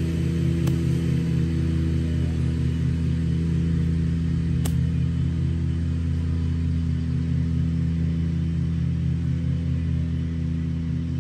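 Golf cart running steadily while driving, a constant low motor hum with an even pulsing, and two faint clicks about a second in and midway.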